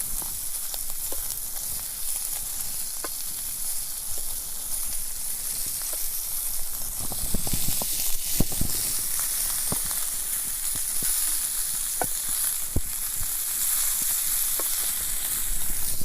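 Food sizzling steadily in a small thin-walled camping frying pan, with scattered pops and crackles. The pan heats very quickly, and the cook says the food catches and burns unless it is stirred often.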